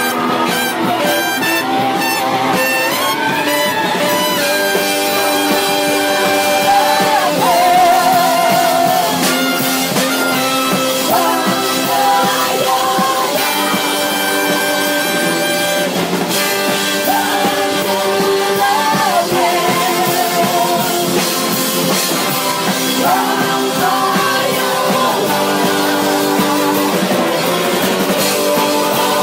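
Live rock band playing: a woman sings lead into a microphone, joined by women's backing vocals, over electric guitar, bass and drums. The sound is picked up close to the stage by an iPhone 4's built-in microphone.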